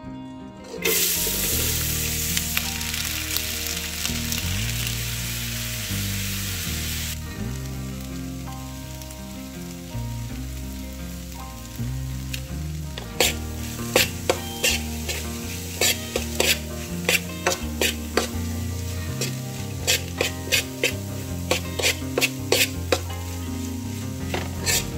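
Corn kernels hit a hot oiled wok about a second in and fry with a loud sizzle that eases to a lighter fry after several seconds. From about halfway, a metal spoon stirring the corn clicks and scrapes against the wok. Background music with bass notes plays underneath.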